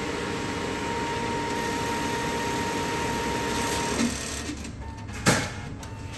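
ATM cash dispenser running as it counts out banknotes: a steady mechanical whirr with a thin whine, stopping about four seconds in. A sharp clack follows about a second later.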